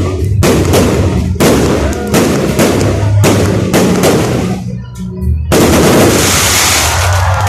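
Fireworks going off in quick succession, sharp bangs one after another. There is a short lull about five seconds in, then a dense, loud stretch of bursting noise.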